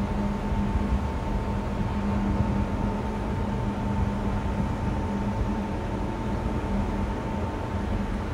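Steady hum with a fainter, higher whine over an even airy rush inside a moving cable car cabin, unchanged throughout.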